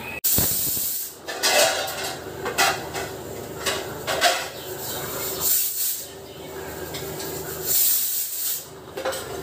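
Steel dishes and utensils clattering as they are handled and set down in a kitchen dish rack, with a few short bursts of hiss.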